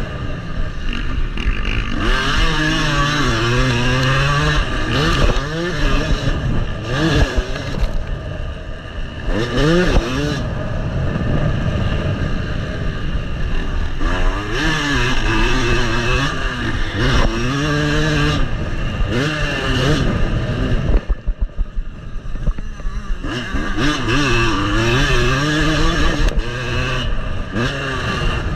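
Yamaha motocross bike's engine at race pace, revving up and falling off again and again as the throttle is opened and rolled off, with a short off-throttle lull and stutter about two-thirds of the way through.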